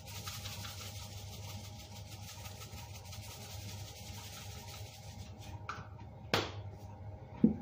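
A faint steady hiss over a low hum, stopping about five and a half seconds in, then a sharp knock and a softer knock near the end.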